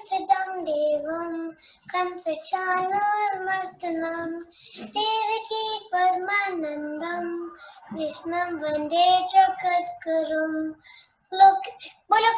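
A six-year-old boy singing unaccompanied, in short held phrases with brief pauses between them.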